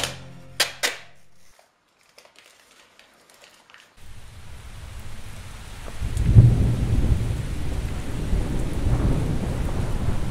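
Background music cuts off, then after a couple of seconds of near silence a steady rain-like hiss fades in. A low rumble swells about six seconds in, like distant thunder.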